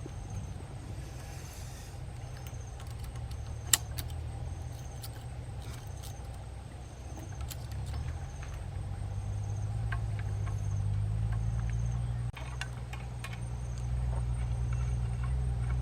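STIHL MS720 chainsaw idling with a low, steady rumble that grows a little louder about ten seconds in, with scattered sharp clicks and knocks.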